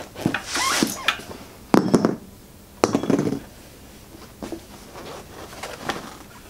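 Rubber motorcycle tire rubbing and squeaking against a spoked wheel rim as its bead is worked off by hand. There are thuds about two and three seconds in, the first the loudest, then lighter handling noises.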